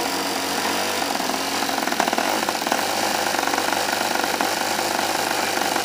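HP VT21 four-stroke glow model-aircraft engine, with a rotary valve in the head instead of poppet valves, running steadily on the ground just after starting, its propeller turning.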